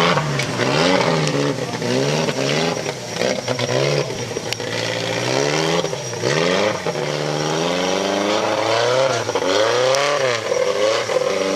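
Off-road trophy buggy's engine revving up and down over and over, about once a second, as it claws its way up a steep dirt bank under load.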